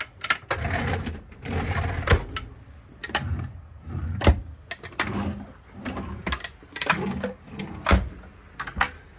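Galley cabinet doors and drawers being opened and shut: a string of sharp clicks and knocks at irregular intervals, with rustling handling noise between them.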